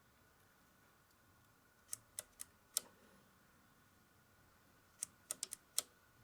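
Sharp clicks in two quick runs, four about two seconds in and five more near the end, over a faint steady high whine.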